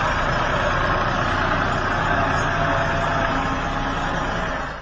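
Ford farm tractor's engine running steadily under heavy load as it hauls an overloaded trailer, a dense, even drone.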